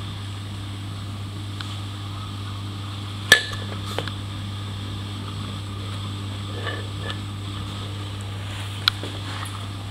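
Indoor room tone with a steady low hum, broken by one sharp click about three seconds in and a few lighter clicks later.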